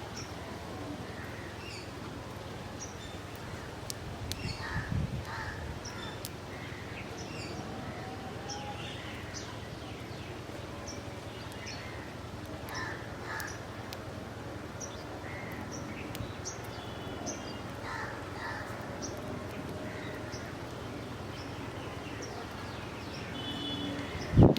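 Crows cawing now and then among many short chirps of small birds, over a steady outdoor background hiss, with a sudden louder noise just before the end.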